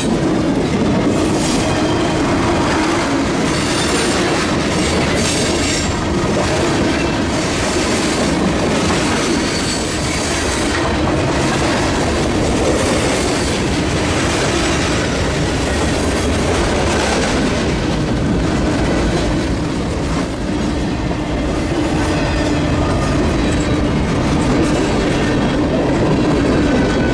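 A freight train's cars rolling past at close range: a steady loud rumble of steel wheels on rail, with irregular clicking as the wheels cross rail joints.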